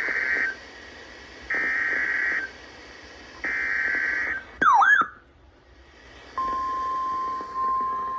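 NOAA Weather Radio emergency alert: the SAME digital header sends three screeching data bursts about a second apart, then a brief warbling squeal. About six seconds in, the steady 1050 Hz warning alarm tone begins.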